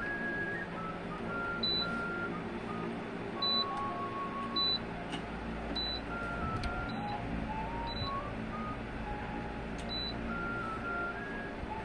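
Short high-pitched beeps from the Daewoo SG-2717C electric grill's touch control panel, about seven in all, one for each button press while the temperature is set. Background music with a slow melody of held notes plays underneath.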